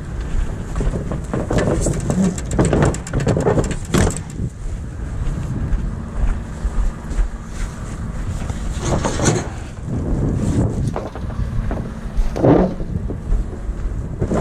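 Semi-trailer rear doors being swung shut and latched: a run of metal clanks and knocks in the first few seconds, more about the middle and another knock near the end, over a steady low rumble.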